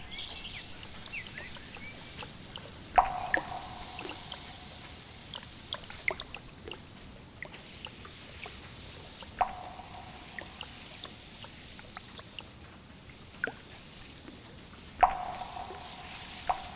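Water dripping: many small scattered drops, with three louder plinks about six seconds apart, each ringing briefly at one pitch like a drop falling into water.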